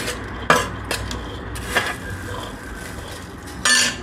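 Steel spoon knocking and scraping against a stainless steel plate and bowl as fried potato pieces are pushed off into the marinated chicken: a few sharp clinks, the loudest one near the end.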